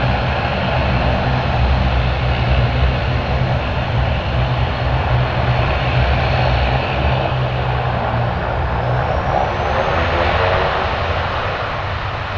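Airliner's engines running loud and steady, with a falling whine about ten seconds in, then fading slightly near the end.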